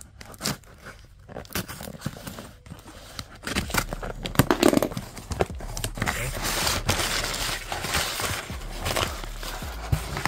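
A cardboard shipping box being opened by hand: packing tape tearing and cardboard flaps rubbing and rustling. A few light taps come first, then a louder stretch of tearing and rustling from about three and a half seconds in.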